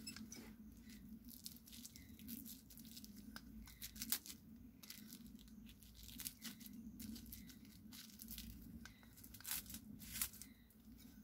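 Thin plastic bag crinkling and rustling around a bagged wild honeycomb, with a few sharp snips and snaps as pruning shears cut through its twig, over a low steady hum.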